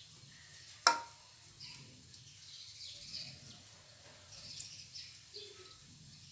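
Small birds chirping over and over, short high falling calls, with one sharp tap about a second in.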